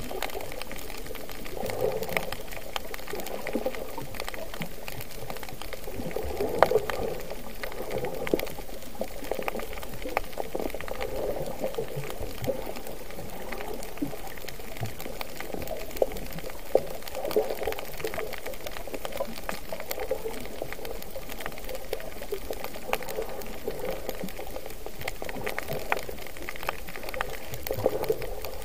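Muffled underwater water noise heard through an action camera's waterproof housing: sloshing and bubbling that swells every few seconds, with scattered sharp clicks.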